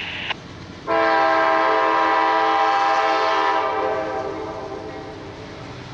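Air horn of a Norfolk Southern GE Dash 9-44CW locomotive sounding one long, loud blast that starts suddenly about a second in and fades out after about three seconds, the warning for a grade crossing.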